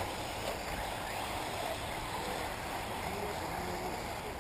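Electric 1/8-scale off-road RC buggies racing at a distance: faint, short rising and falling motor whines over a steady hiss.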